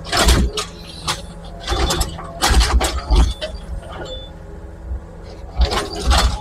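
Excavator engine running steadily while its bucket scrapes and knocks against concrete and rubble in four loud bursts, the longest a little before the middle.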